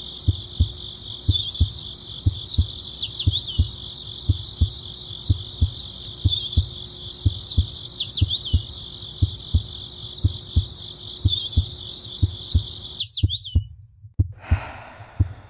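A designed soundtrack of low, evenly repeating thumps, about three a second, like a heartbeat pulse. Over it run steady high whining tones with chirps every few seconds; the high tones cut off about 13 seconds in, followed by a brief whoosh.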